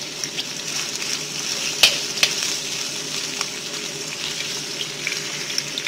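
Sliced red onions sizzling in oil in a frying pan on a slow fry, stirred with a wooden spatula: a steady crackle with small pops, and two sharp clicks about two seconds in.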